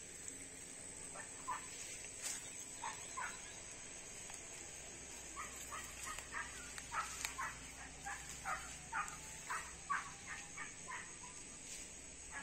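A run of short, high animal calls, a few at first and then about two a second for several seconds, over a steady high hiss.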